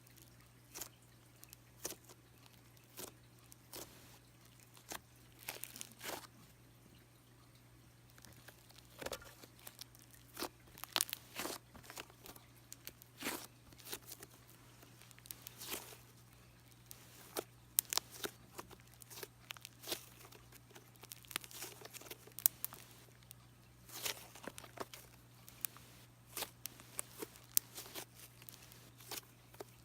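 Thick cream-cheese-textured slime being squished and stretched by hand, giving irregular sticky crackles and pops, thicker from about a third of the way in. A faint steady low hum runs underneath.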